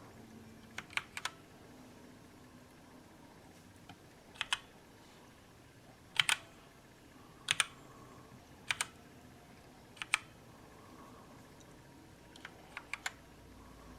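Keystrokes on a mechanical keyboard with linear red-style switches: short, sharp clicks, mostly in quick pairs, one to two seconds apart, with small flurries of three or four near the start and near the end. The keys are being pressed as a Function-key combination to step through the keyboard's backlight modes.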